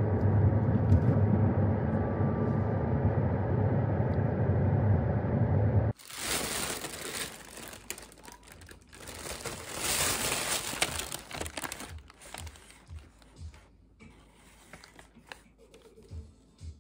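Steady low rumble inside a moving car's cabin, cutting off suddenly about six seconds in. Then a plastic takeout bag rustling and crinkling in irregular bursts as it is handled.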